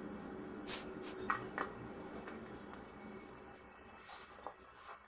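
Handling noises of craft work on a stone floor: a paper template lifted off a foam sheet and a steel bowl set down on it, a few short knocks and rustles, the loudest about a second in, over a steady low hum.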